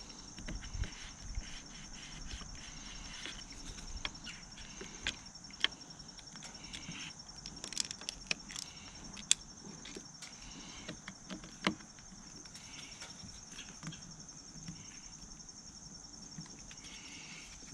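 Scattered small clicks and taps from hands working a screen protector onto a motorcycle radio screen, over a steady high insect trill.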